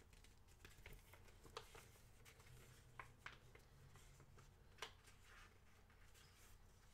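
Near silence, with a few faint, short rustles and clicks of a paper booklet being handled and opened.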